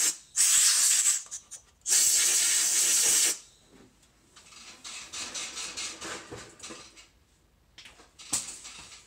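Compressed-air blowgun blowing off a cleaned engine ground stud and cable terminals in short blasts of loud hiss: two main blasts with brief spurts between them in the first three and a half seconds. After that come fainter scattered clicks and knocks.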